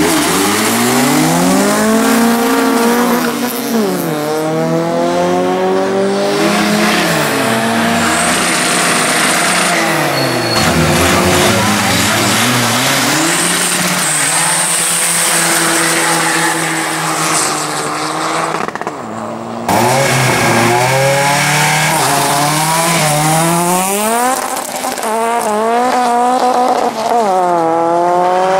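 Tuned hatchback engines revving hard at a drag-strip launch and accelerating away, the pitch climbing and dropping again with each gear change, with a high tyre squeal at times. The sound breaks off sharply about two-thirds of the way in and carries on with more engines revving up.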